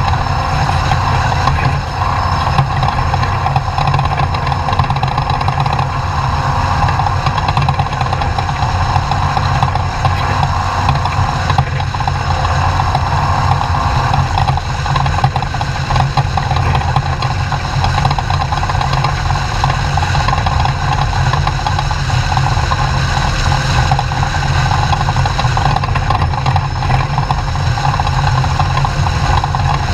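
Off-road race truck's engine running steadily, a loud continuous drone with no let-up.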